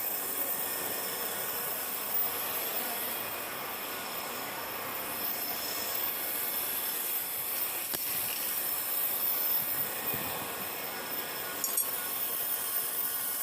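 Metal being cut on a lathe: a steady grinding screech of the cutting tool against the workpiece, with a brief click near the end.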